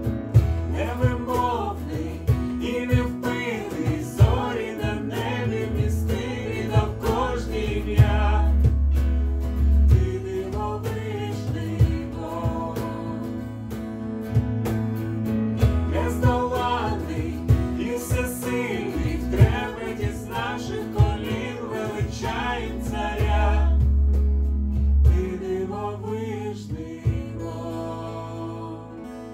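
Live worship band playing a slow song: singing voices over acoustic guitar, electric keyboard and cajon hits. Near the end the singing stops and the guitar and keyboard carry on, quieter.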